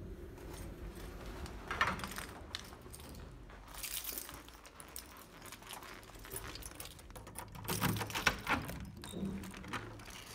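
A bunch of keys jangling as a key is worked into a door lock, amid scattered clicks and handling rustle; the loudest rattle comes about eight seconds in.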